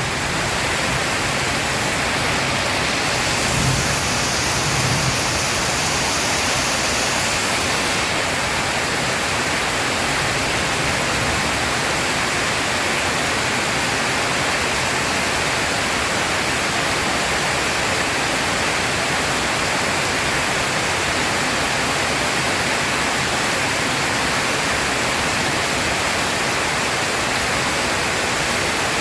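Heavy rain falling steadily, a dense, even hiss. There is a faint low rumble about four seconds in.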